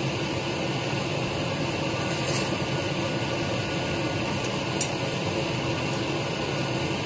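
Steady background machine hum, with a few faint short clicks.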